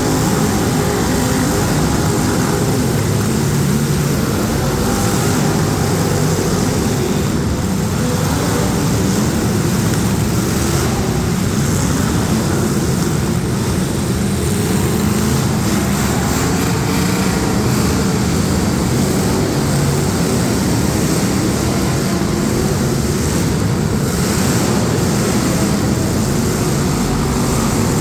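Engines of several street stock demolition derby cars running together, a loud, steady mechanical drone with no breaks.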